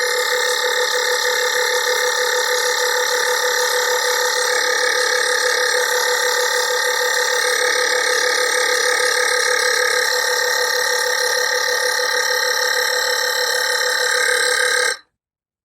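Built-in air compressor of an Everstart 750 jump starter running steadily as it pumps toward its preset 33 psi, in its slowed pace near the target. It cuts off suddenly near the end: the automatic shut-off at the preset pressure.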